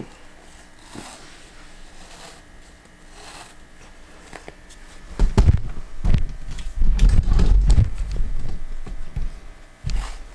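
Irregular rustling, scraping and knocking as sticky wrap is wound around a goat kid's injured leg. The noise is loudest from about five to eight seconds in, with a sharp knock near the end.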